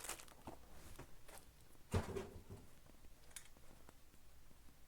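Faint handling noise from trading-card boxes and their packaging on a table: a few light taps and one knock about two seconds in.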